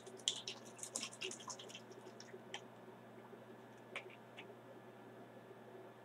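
A small plastic bottle being handled and shaken: a quick run of light clicks and crackles over the first two and a half seconds, then a few single clicks about four seconds in as its cap is handled.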